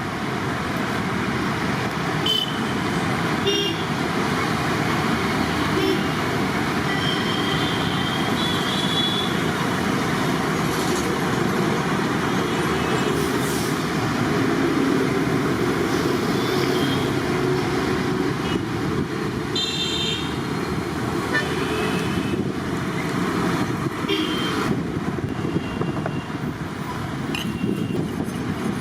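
Steady street traffic noise with passing vehicles and short horn toots now and then.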